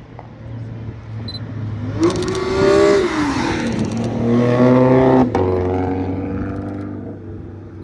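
Widebody car's engine revving as it drives past: the revs climb and fall twice, the second pull cut off sharply about five seconds in, then the engine fades as it moves away.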